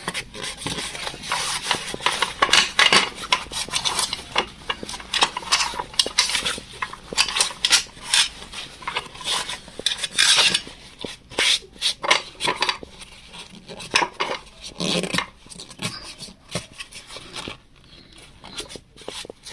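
A cloth rag wiping and scraping around inside the metal oil pan of an Emel industrial sewing machine, with irregular clinks and scrapes of metal. The sounds die down near the end.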